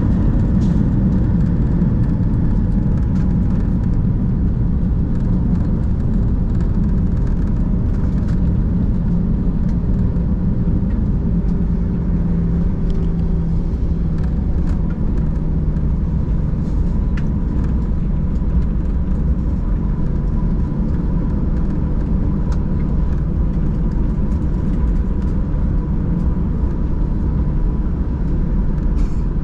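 Airliner cabin noise during the landing rollout, spoilers deployed: a loud steady rumble of the engines and the wheels on the runway. A droning tone drops slightly in pitch and fades out about halfway through as the aircraft slows.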